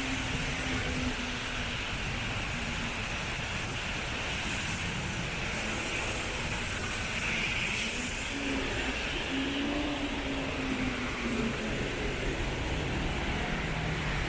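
Road traffic on a rain-wet road: a steady noise of passing vehicles, with a low hum that fades about two seconds in and returns for a few seconds past the middle.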